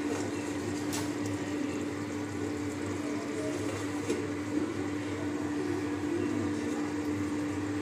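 Steady hum with a constant tone, under which a covered pan of chicken gravy simmers on a gas burner. A light clink of the steel lid comes about a second in and again about four seconds in.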